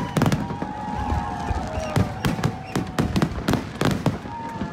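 Fireworks display: many shells bursting in quick, irregular succession, several bangs a second over a steady crackle, with faint whistling tones that slide slowly down in pitch.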